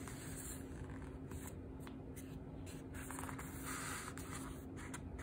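Faint rustle and handling of a picture book's paper page being turned, with a few soft clicks, over a faint steady hum.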